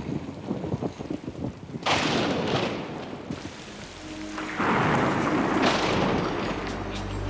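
Heavy rain falling steadily, with thunder: a sudden clap about two seconds in and a longer rumble from about four and a half seconds. Music begins to come in near the end.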